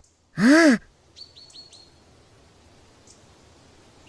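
A brief hummed vocal response from a cartoon character, its pitch rising and then falling. It is followed by four quick high bird chirps over a faint ambient background.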